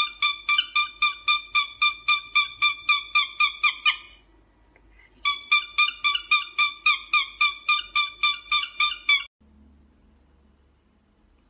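Cockatiel calling in a fast run of short, identical whistled chirps, about five or six a second. It pauses about four seconds in, then resumes for another four seconds before stopping.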